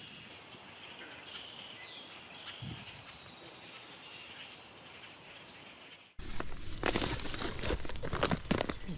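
Faint outdoor morning ambience with a few short, high bird chirps. About six seconds in it changes abruptly to louder, irregular crackling and rustling.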